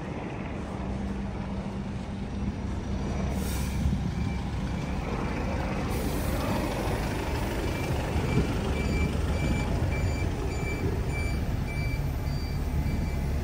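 Road traffic running close by: van, minibus and bus engines with tyre noise, growing louder. From a few seconds in, an electronic warning beeper gives short high beeps about twice a second.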